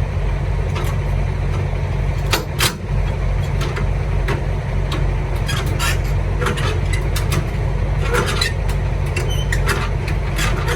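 Semi truck's diesel engine running steadily, with scattered short, sharp clicks and clanks over it.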